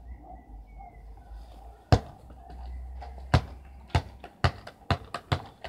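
Football being kicked and bouncing on a concrete driveway: one sharp thud about two seconds in, then a quick, irregular run of about six thuds in the last two seconds.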